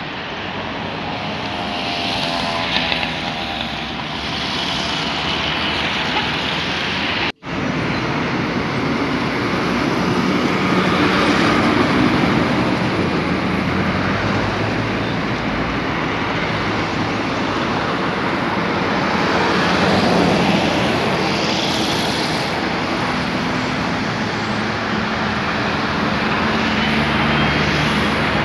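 Steady road traffic noise, dropping out for an instant about seven seconds in.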